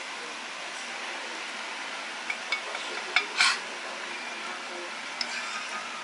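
Eating ramen noodles with chopsticks: a few light clicks of chopsticks against the bowl and one short airy burst from the eater about three seconds in, over a steady background hiss.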